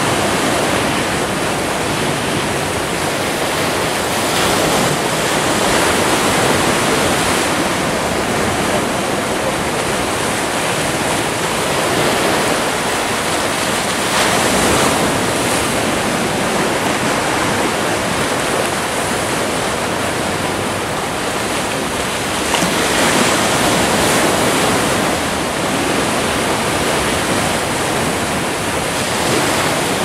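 Sea surf breaking and washing among rocks along the shore: a steady rush of water that swells louder and eases off every few seconds.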